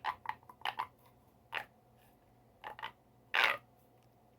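Plastic fidget toy being clicked and handled: a scattered series of short sharp clicks and snaps, some in quick pairs, with a longer rasping click-run about three and a half seconds in.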